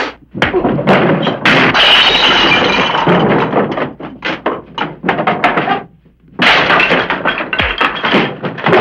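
Fistfight brawl with punches and a body crashing into wooden chairs and a table, furniture clattering over and breaking. The crashes come in loud bursts, with a short lull about six seconds in.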